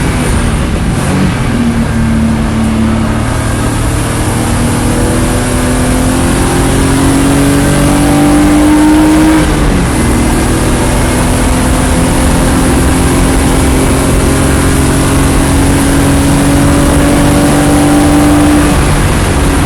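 Race car engine under hard acceleration, its pitch climbing slowly and dropping sharply about a second in, again about nine and a half seconds in, and near the end.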